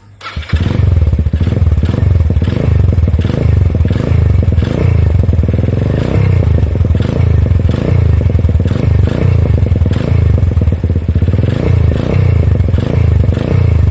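Single-cylinder motorcycle engine, a Suzuki Thunder 125, running loud and bassy through an Apido aftermarket exhaust with its silencer insert and tip removed, blipped up and down in repeated revs. There is a slight rattle, which the owner puts down to the packing inside the muffler having come loose.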